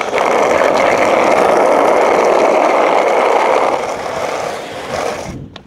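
Skateboard wheels rolling over rough asphalt: a loud, steady rolling hiss that eases after about four seconds and falls away near the end.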